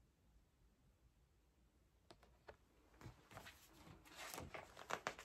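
Faint handling of a hardback picture book: two soft clicks about two seconds in, then a run of rustles and taps as the book is moved and its pages handled, growing louder near the end.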